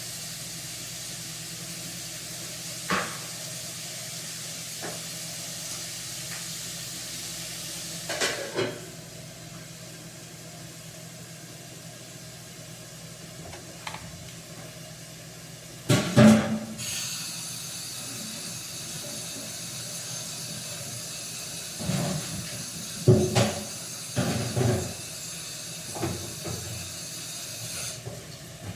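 Food hissing and sizzling in a hot pan, with several sharp knocks and clatters of cookware and utensils, the loudest about sixteen seconds in.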